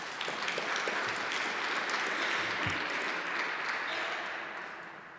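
Audience applauding after a talk, swelling at the start and dying away near the end.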